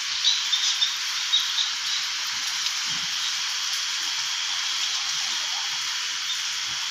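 Steady hiss of falling rain, with a few louder drop ticks in the first two seconds.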